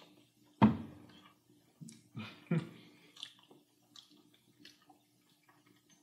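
Wet chewing and mouth sounds of people eating, with scattered small clicks. A sharp thump comes about half a second in, and two short low murmurs about two seconds in.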